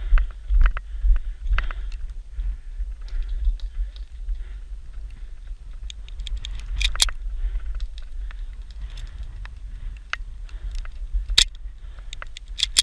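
Steady low rumble on the microphone with scattered sharp clicks and cracks, the strongest about seven seconds in, again about eleven and a half seconds in, and just before the end.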